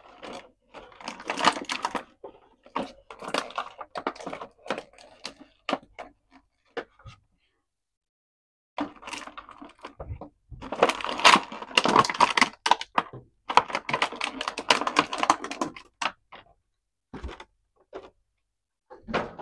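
Toy packaging and plastic parts handled by hand: irregular crinkling, crackling and clicking in bursts, with a short pause about halfway through.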